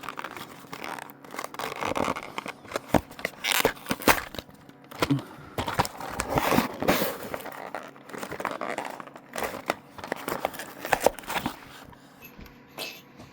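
Packaging being handled and opened: crinkling and tearing with sharp clicks and rustles, dying down about twelve seconds in.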